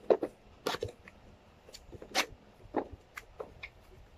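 Cardboard box being opened by hand: irregular rustling and scraping of packaging with a few sharp clicks and snaps, the loudest near the start and about two seconds in.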